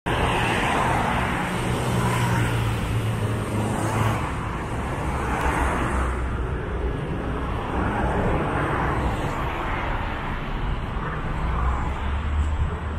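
City road traffic: car engines and tyre noise, swelling every second or two as vehicles pass, with a low engine drone in the first few seconds.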